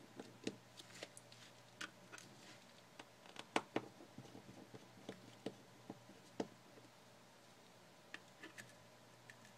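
Faint, irregular small clicks and ticks of a small screwdriver working tiny screws out of an opened iPhone 4, the sharpest about three and a half seconds in.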